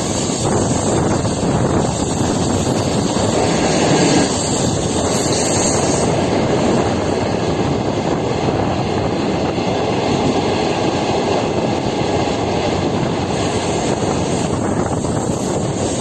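Train running along the track: a steady, unbroken rumble of wheels and rails.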